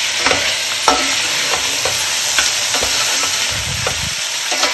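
Beef pieces and onions frying in oil in a stainless steel pot, a steady sizzle. A slotted steel spoon stirs them, clinking and scraping against the pot several times.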